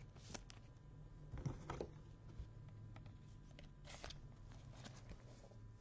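Faint plastic scrapes and clicks of a trading card being slid into a rigid clear plastic toploader by gloved hands, a cluster about a second and a half in and another near four seconds, over a low steady hum.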